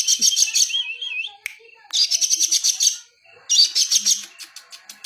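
Songbird singing in repeated bursts of rapid, high chirps about a second long with short pauses between, and a brief warbling whistle after the first burst.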